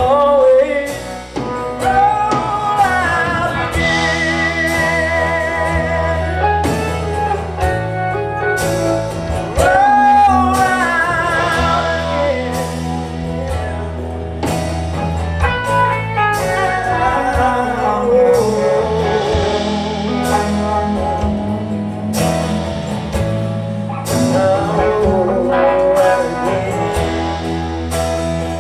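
Live band playing: electric and acoustic guitars, bass guitar and drum kit, with a man singing.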